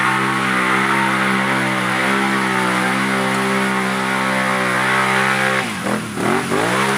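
Can-Am ATV engine held at high, steady revs, then dropping and climbing back several times in quick swings near the end as the throttle is let off and reapplied.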